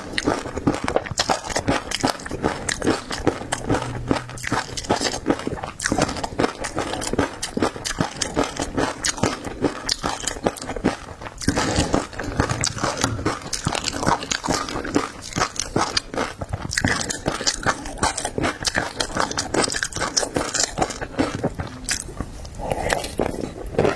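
Close-miked eating: continuous biting and chewing with crunching and crackling, a dense run of sharp clicks throughout.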